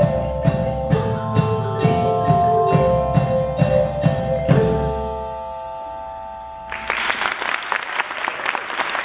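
School percussion ensemble of xylophones and marimbas with a drum beat playing the final bars, strokes about two a second. The last chord rings out and fades, and applause breaks out about two seconds later.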